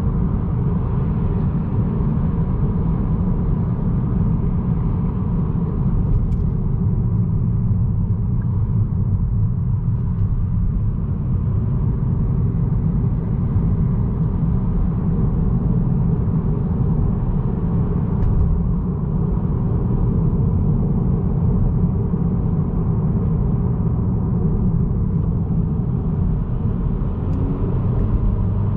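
Steady low rumble of road and engine noise heard inside the cabin of a 2022 Honda Accord Sport with the 1.5-litre turbocharged four-cylinder, cruising along a road.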